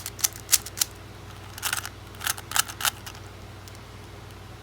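Plastic Rubik's Cube layers being twisted: quick clicking and clacking in two short flurries, stopping about three seconds in.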